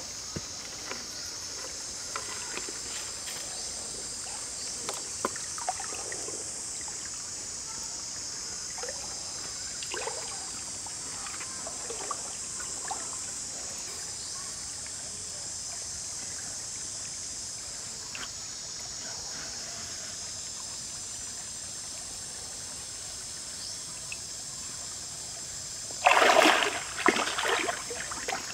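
Steady high-pitched background hiss of the forest, with scattered faint clicks and knocks of food being handled. About two seconds before the end comes a louder, short run of rustling and scraping as a whole raw chicken is forced onto a wooden stick spit.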